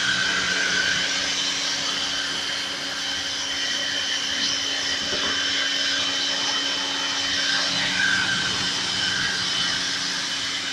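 Steady whir of a motor-driven machine, a rushing noise with a high, steady whine over it and a low hum beneath.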